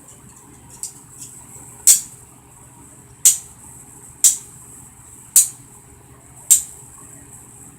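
Metal handcuff ratchet clicking as a cuff is closed and tightened on a wrist: five sharp clicks about a second apart.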